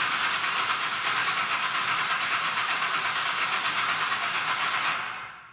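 A loud, steady hiss, even and without any pitch, fading out over about the last half second.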